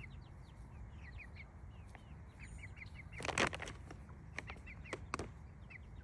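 Young chickens peeping softly, a steady run of short falling peeps, with a brief rustle, like wings flapping, about three and a half seconds in and a few light clicks shortly after.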